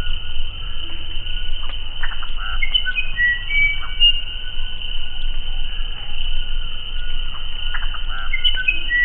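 Uirapuru (musician wren) singing: short, clear whistled notes at varied pitches, with rattling chatter notes about two seconds in and again near the end, over a steady high insect drone.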